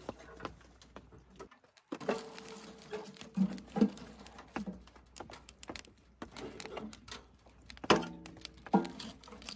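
Irregular light clicks and knocks of cookware and tableware being handled at a camp meal, over a faint pattering of rain on the tent.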